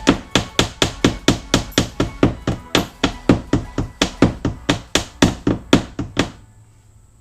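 A hammer striking in a quick, steady rhythm of about four blows a second, driving a shelf wall fitting into drywall. The blows stop about six seconds in.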